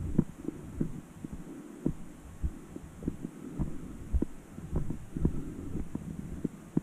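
Footsteps of a person walking down a dirt trail: dull, uneven thuds at about two a second.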